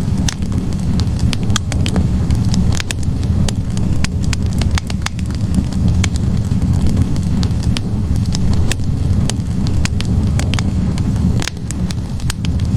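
Log fire burning in a fireplace: a steady low rumble of flames with frequent, irregular crackles and pops from the burning wood.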